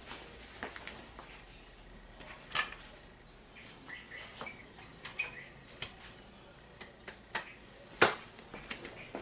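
A scatter of light clicks, knocks and small clatters from someone moving about and handling things close by, with one sharp knock about eight seconds in, the loudest sound.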